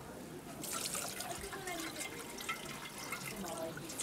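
Rice being rinsed by hand in a plastic bowl of water: water sloshing and trickling as the grains are stirred and the bowl is tipped to drain.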